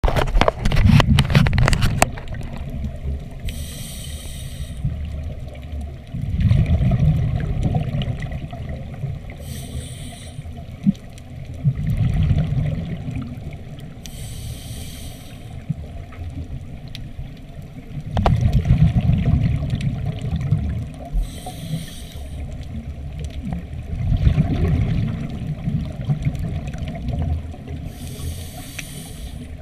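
Scuba diver breathing through a regulator underwater: every six or seven seconds a short hiss as air is drawn in, then a longer low rush of exhaled bubbles. A quick run of clicks in the first two seconds.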